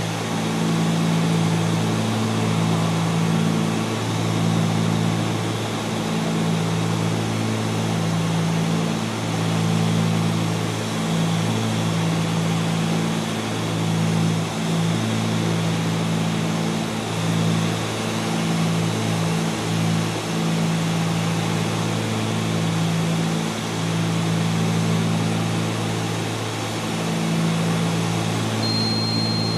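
Cabin drone of a Cessna 310Q's two six-cylinder piston engines and propellers in flight on approach. The sound is steady, with a slow, regular rise and fall in level. A brief thin high tone sounds near the end.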